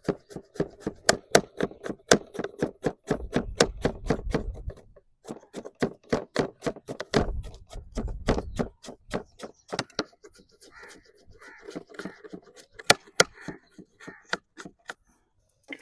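Knife chopping vegetables on a cutting board in quick, even strokes, about five a second, pausing briefly twice.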